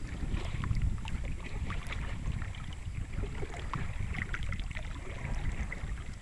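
Wind rumbling on the microphone over water lapping and light splashing around a small boat out on the lake, with scattered small ticks and drips.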